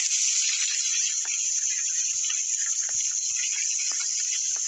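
Bacon and Black Forest ham sizzling in a frying pan on a high flame: a steady loud hiss with scattered small pops and crackles.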